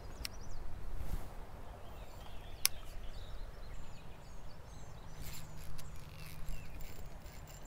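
Creekside outdoor ambience: a low rumble of wind and handling noise on the microphone, with faint bird chirps. Two sharp clicks sound, one right at the start and one about two and a half seconds in, and a low steady hum comes in for the last couple of seconds.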